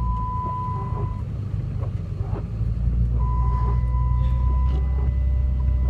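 Steady low rumble of a car driving slowly on a snowy road, heard from inside the cabin. A thin, steady high tone drops out about a second in and comes back about three seconds in.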